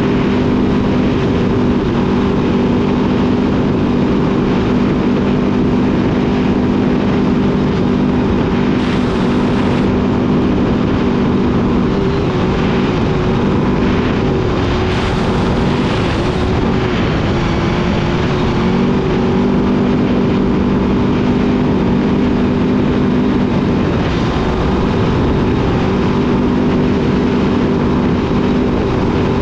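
Trophy truck's engine running at steady high revs at speed over a dirt road, over a rush of wind and tyre noise. About halfway through, the revs waver and drop for several seconds, then settle back to a steady pitch.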